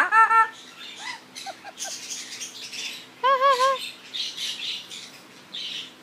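Yellow-headed amazon parrot calling. It opens with a loud rising call that breaks into a wavering note, then gives a few short notes and, about three seconds in, a warbling call. Raspy, breathy sounds follow.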